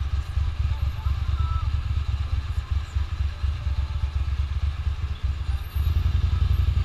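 Ducati motorcycle engine running at low speed in stop-and-go traffic, a steady low throb that grows louder about six seconds in as the bike pulls ahead.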